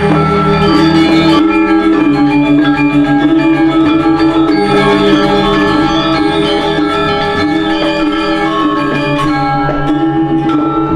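Background music: a pop track of sustained pitched notes over a steady beat, with bright mallet-like tones.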